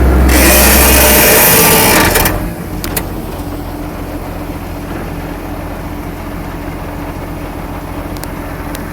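Diesel engine of a Case IH Steiger STX 535 Quadtrac tractor running. A loud deep drone and a rushing hiss for about the first two seconds drop off sharply, leaving a steady, quieter engine hum.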